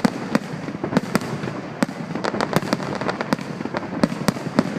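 Fireworks display: a dense, irregular barrage of sharp bangs and pops, several a second.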